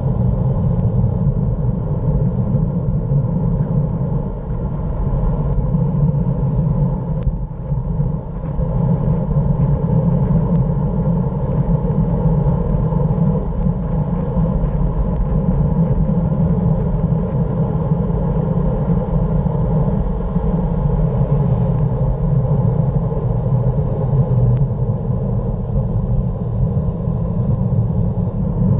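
Steady wind rush and tyre rumble on a camera riding down a mountain road at speed, mostly a deep rumble with a faint hiss above it. There is a short dip about four seconds in and another around eight seconds.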